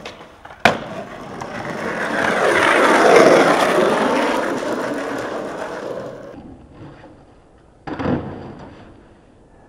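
Skateboard on asphalt. A sharp clack less than a second in, then the wheels rolling over rough pavement, swelling and fading as the board passes. About eight seconds in comes a short, heavier knock of the board's tail popping and landing.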